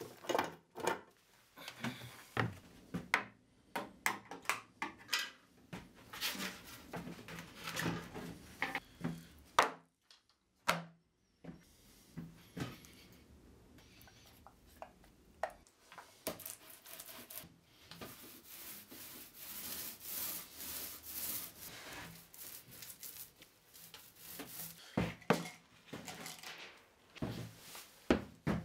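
Hands-on painting prep in a small wooden room: paint tins knocking and clicking as they are handled, and paint poured from a tin into a plastic roller tray. Between these come scattered knocks and a longer stretch of steady rubbing against wood.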